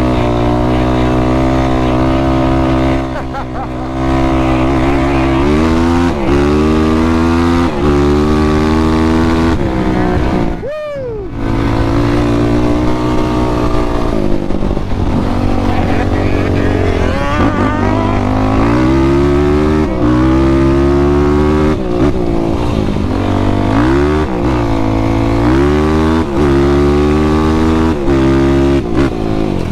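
Sport ATV engine revving hard through the dunes, pitch climbing and dropping again and again as the throttle is worked, with a brief throttle cut and falling revs about eleven seconds in.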